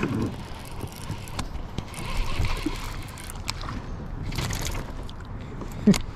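Water splashing and trickling as a small hooked fish is lifted out of the river on the line beside the kayak, with a few clicks and knocks from handling the rod and reel, the loudest just before the end.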